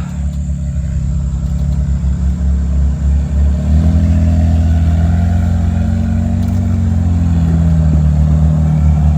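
A Jeep's engine running under load at low speed on a trail. It pulls harder and gets louder about three and a half seconds in, then eases slightly near the end.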